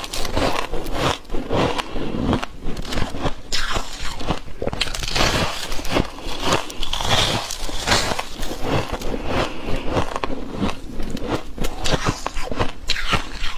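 Close-miked ice eating: bite after bite crunching through dry, flaky white ice, in a dense, irregular run of crunches.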